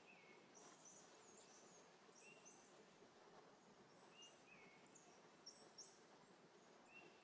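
Near silence with faint bird chirps: short, high chirps in small groups every second or so.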